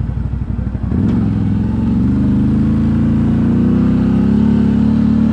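ATV engine under way, picking up revs about a second in, its pitch climbing over the next few seconds and then holding steady.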